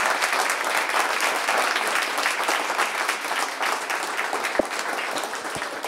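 A small standing group applauding, many hands clapping steadily, easing off slightly toward the end.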